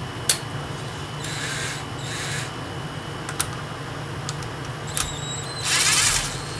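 A cordless power tool runs in one short burst near the end, with a whine, as fasteners come off the water pump housing. A few sharp clicks of tools on metal come before it, over a steady low hum.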